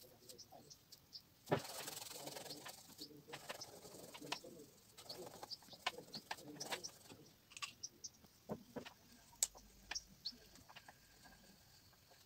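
Faint scratching of oil pastel strokes and hand rubbing on paper, with scattered small ticks and taps. Two longer scratchy stretches come about a second and a half in and again around the middle.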